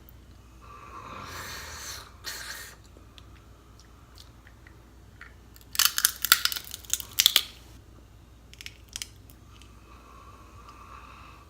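Snow crab leg shells being cracked and broken apart, a dense cluster of sharp cracks and snaps about halfway through, with softer crunching before it.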